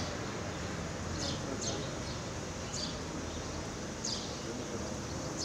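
Small bird chirping, short high falling chirps every second or so, over steady outdoor background noise.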